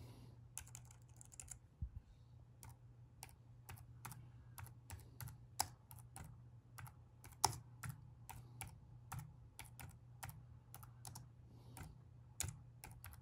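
Computer keyboard keys tapped one at a time in slow, uneven typing of a search query, about one to three keystrokes a second, a few noticeably louder. A steady low hum runs underneath.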